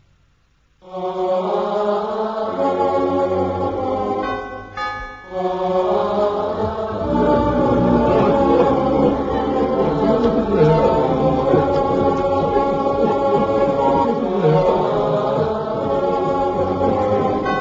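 Background music of a choir chanting in long held tones, starting about a second in after a brief silence.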